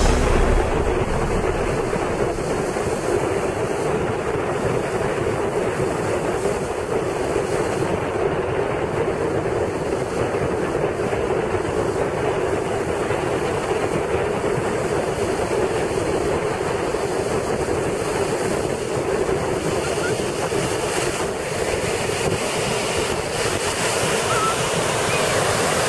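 Surf breaking and washing on the beach, with wind buffeting the microphone: a steady rushing noise.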